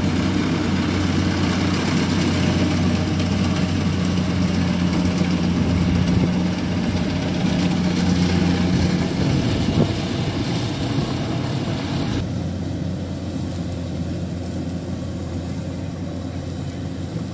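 Rice combine harvester engine running steadily as it works the field, a low steady hum under a broad mechanical rush. About twelve seconds in the sound changes abruptly and becomes a little quieter and duller.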